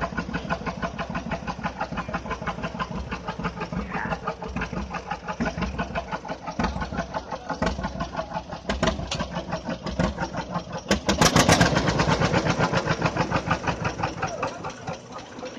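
Tractor engine running at a slow, even beat of firing pulses, growing louder for a second or so about eleven seconds in.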